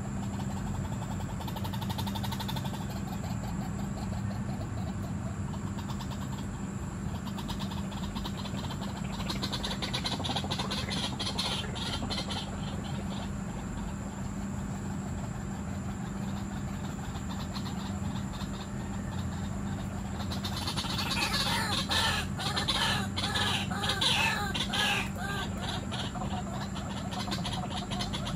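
White-breasted waterhen calls: quickly repeated croaking notes in short bouts, the longest and loudest a bout about 21 to 25 seconds in, over a steady low hum.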